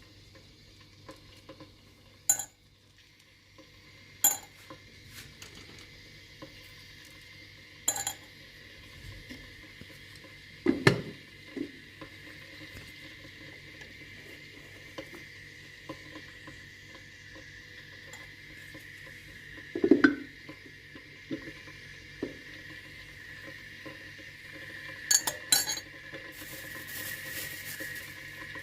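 Dishes and cutlery being handled, with sharp clinks and knocks every few seconds over a low steady background.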